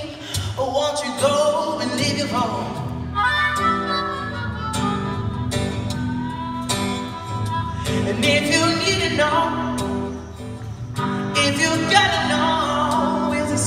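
Live acoustic music through a PA: a man singing over an acoustic guitar, with a harmonica playing along.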